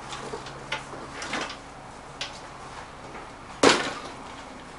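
Golf bag being carried and set down on a concrete garage floor: a few light knocks and clicks, then one sharp knock about three and a half seconds in.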